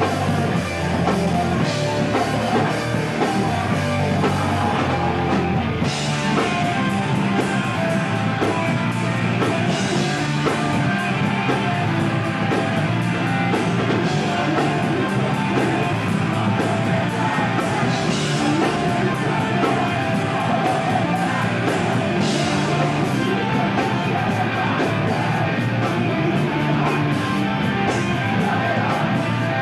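Hardcore punk band playing live: distorted electric guitars, bass and drums at full volume, with a singer's vocals over them.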